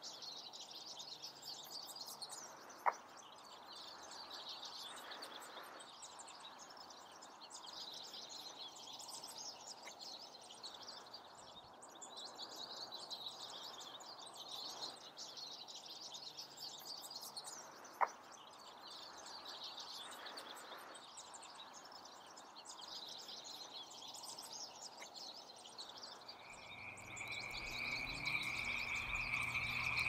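Faint outdoor nature recording of frogs calling in a steady, pulsing chorus with some chirping, broken by two brief sharp clicks. Near the end a louder, nearer frog call starts and grows.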